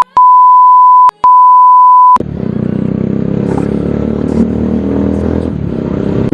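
A loud, steady, high bleep tone, broken twice by brief gaps, stops suddenly about two seconds in. A single-cylinder motorcycle engine then runs steadily: the Bajaj Pulsar 220 through its aftermarket SC Project exhaust.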